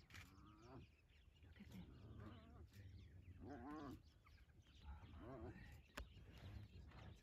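Faint, wavering calls of spotted hyenas and African wild dogs in several short bouts as the dogs confront the hyenas, with a single sharp click about six seconds in.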